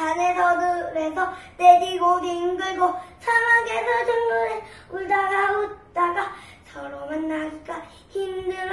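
A young boy singing a children's song on his own, in short phrases of held notes with brief breaks between them.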